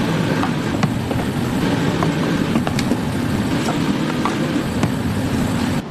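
Steady low rumbling noise with scattered light clicks and clinks.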